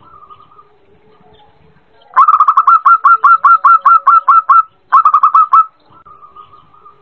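Zebra dove (perkutut) song. About two seconds in comes a fast run of about a dozen sharp, repeated notes of one pitch; after a brief pause a shorter run of about five notes follows.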